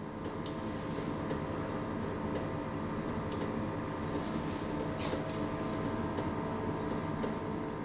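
A steady, even hum made of several held tones, with a few faint clicks.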